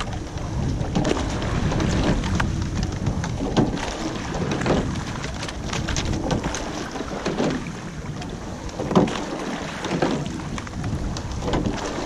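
Rowing shell under way: water rushing along the hull and wind on the microphone, with the sculls knocking in their oarlocks and splashing in the water every few seconds.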